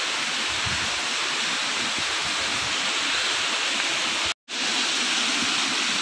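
Waterfall rushing, a steady hiss of falling water, broken off for an instant about four and a half seconds in.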